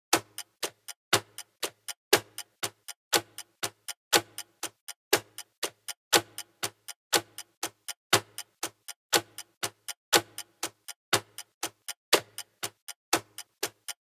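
Clock ticking in a fast, even rhythm of about four ticks a second, with one louder tick each second.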